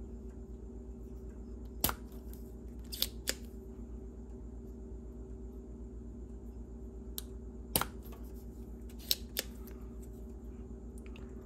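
Spring-loaded solder sucker snapping about six times, some in quick pairs, as melted solder is sucked out of a circuit board's pin holes during desoldering. A steady low hum runs underneath.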